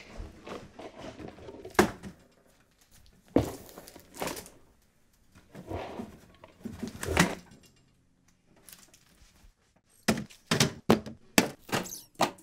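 Hardcover books being picked up and set down in a small room: separate thunks every second or two, then a quick run of thunks near the end as books are put down onto plastic terrarium lids.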